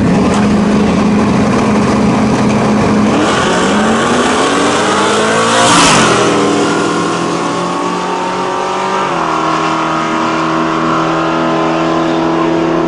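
Drag-racing pickup trucks, one a Ford F-150 Lightning with its supercharged V8, launching down the strip. The engines idle steadily at the line, then rev up with rising pitch. One truck passes close about six seconds in, the loudest moment, and its pitch drops as it goes by. The engines keep running as the trucks head down the track.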